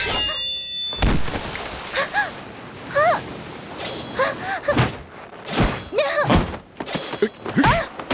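Martial-arts fight sound effects. A metallic blade ring at the start is followed by a whoosh, then several heavy thuds of blows mixed with short grunts and cries.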